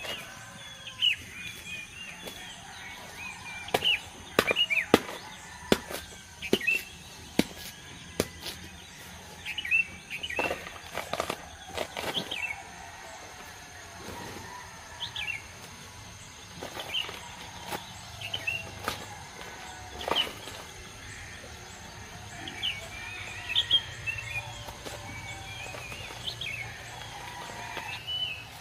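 Irregular sharp snaps and crackles of papery husk sheaths being torn off giant bamboo shoots and dry bamboo litter being handled, with small birds chirping throughout.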